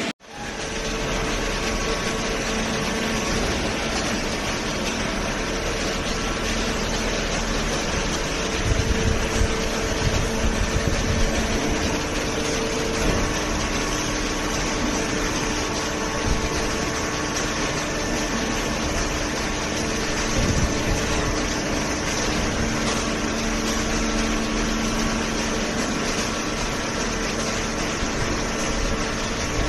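Cardboard baler machine running: a steady mechanical hum with a few fixed tones, and some low knocks between about nine and twelve seconds in.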